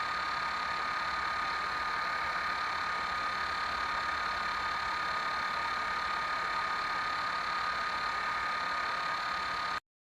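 Steady hum and hiss with a high, steady whine, unchanging throughout, cutting off suddenly near the end.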